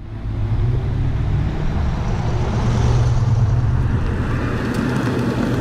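Ford XB Falcon John Goss Special's V8 engine running at a steady, low note, fading in at the start, with wind and road noise.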